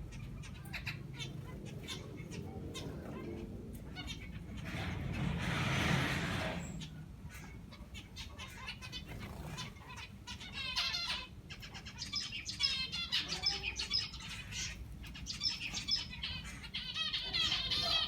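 Zebra finches chirping, their short repeated calls growing dense in the second half, with a brief rustling noise about five seconds in.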